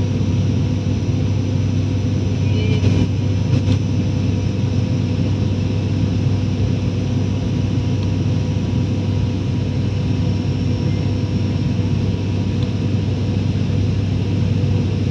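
Steady cabin noise of an airliner in flight, engines and airflow running evenly with a strong low hum and a few constant higher tones, heard from inside the cabin while the plane descends on its approach to land.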